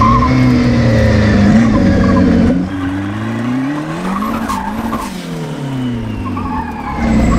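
Turbocharged Toyota 3TC engine of a Lotus 7 kit car running hard on throttle while the car spins donuts, with tyres squealing. About two and a half seconds in the sound drops back and its pitch rises and falls as the car circles, then it comes up loud again near the end.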